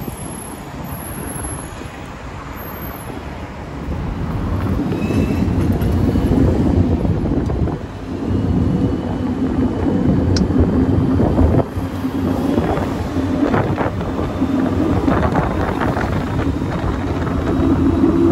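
A moving bus: a steady engine drone and road rumble, with a few light knocks.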